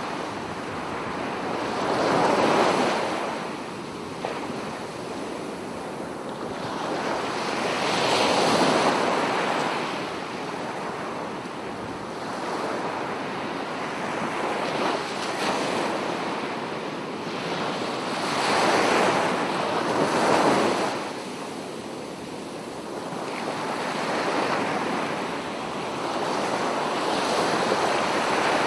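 Ocean surf: waves breaking and washing in, swelling and falling away every five or six seconds, with a steady rush of wind.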